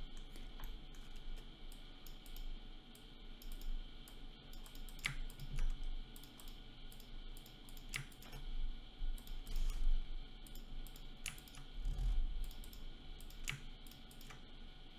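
Irregular clicks of a computer keyboard and mouse, with a few louder clicks a few seconds apart, over a steady low hum.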